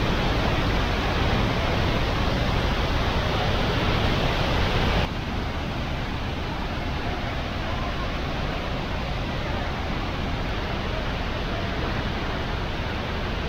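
Steady rushing of a waterfall's falling water, an even hiss. About five seconds in it drops abruptly to a quieter, duller rush.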